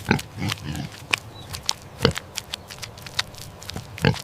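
Domestic pig recording: scattered sharp clicks and knocks, with a few soft low grunts in the first second.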